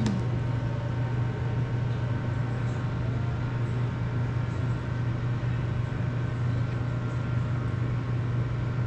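A steady low hum that does not change, with faint thin tones above it.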